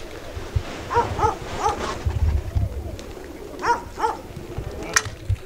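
A few short, distant animal calls in quick pairs, over a low rumble.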